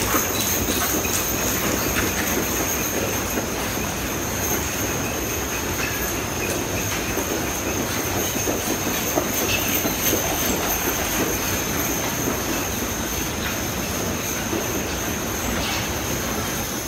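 Team of six harnessed draft horses pulling a wagon at a trot on an arena's dirt floor: a steady, dense clatter of hoofbeats, rattling harness and wagon wheels. A steady high-pitched whine runs underneath.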